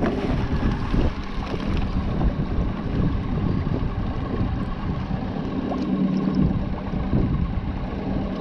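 A motorboat's outboard engine running at a steady speed: a constant hum under a rush of wind on the microphone.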